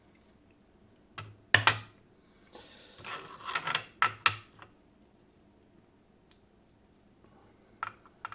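Small metal parts of a disc detainer lock being handled: a few sharp clicks and taps, with a short stretch of scraping and rattling in the middle.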